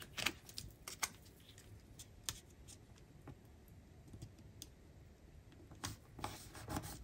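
Faint, scattered taps, clicks and rustles of paper planner stickers being handled, peeled and pressed down onto a planner page by hand.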